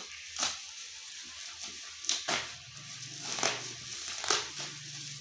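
Packaging being handled while a phone is unboxed: soft crinkling with about five sharp clicks and taps, and a faint low hum partway through.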